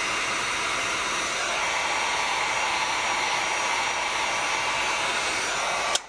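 Electric heat gun running, a steady rush of blowing air from its fan and heater, aimed at heat-shrink tubing on a cable end to shrink it. It cuts off with a click at the very end.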